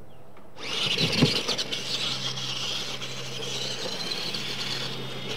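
Radio-controlled monster trucks launching off the start about half a second in and racing across a dirt track: a gritty whir of motors, gears and tyres churning loose dirt, with a thud about a second in.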